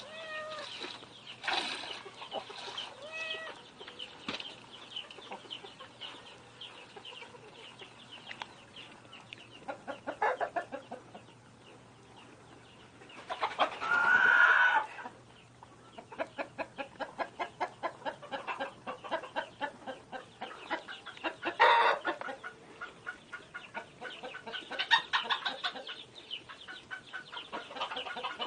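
Chickens clucking in a run of short, repeated calls, with one louder, longer call about fourteen seconds in.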